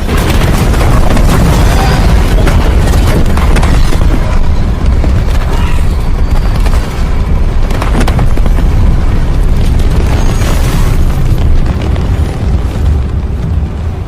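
Film destruction sound effects: a long, loud, heavy rumbling boom with many crashing impacts layered through it, easing off near the end.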